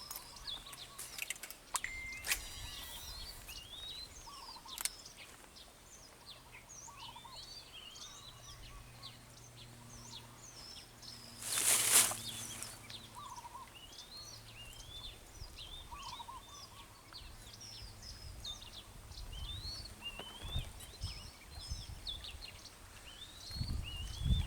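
Small birds chirping and calling over and over. A few sharp clicks come in the first five seconds, and a brief loud rushing swish comes about halfway through.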